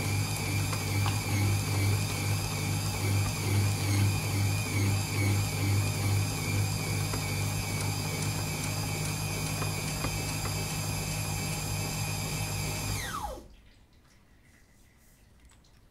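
Electric meat grinder motor running steadily under load as it grinds crunchy chocolate-coated snacks, its hum pulsing slightly. About 13 seconds in it is switched off and the pitch falls quickly as it winds down to a stop.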